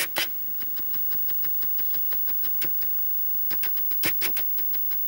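Irregular small clicks and taps as a clear plastic rubber-band loom and a metal crochet hook are handled. A few louder knocks come right at the start and again about three and a half to four seconds in.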